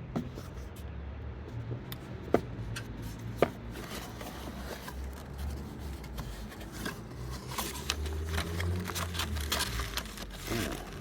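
Cardboard and paper packaging being handled and opened: a few sharp taps and knocks, then busier scraping and rustling from about seven seconds in.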